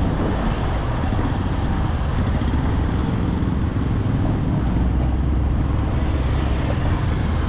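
Steady road traffic noise: engines and tyres of cars and motorcycles, with a heavy low rumble.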